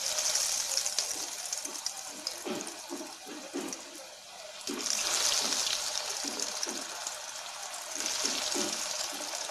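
Breadcrumb-coated bitter gourd slices deep-frying in hot oil in a steel pan: a loud sizzle that starts suddenly as the first slice goes in. It flares up again about five seconds in and near the end as more slices are dropped in.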